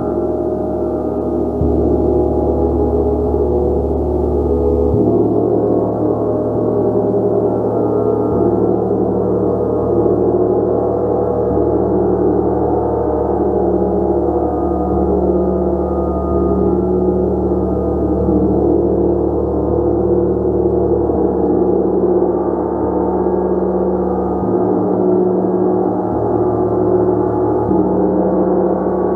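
A gong played continuously, a dense sustained wash of many overlapping tones at a steady loudness. Its deepest tones shift every few seconds.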